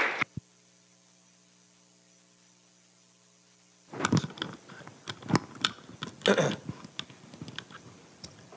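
Applause cuts off with a click, leaving a faint electrical mains hum. About four seconds in, irregular rustling, knocks and bumps of a handheld microphone being handled set in and run on.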